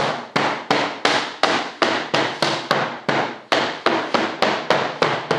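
Mallet tapping on a thick fiberglass mold at a steady pace of about three strikes a second, each strike sharp with a short ringing decay. The tapping is meant to pop the molded fuselage loose from the mold.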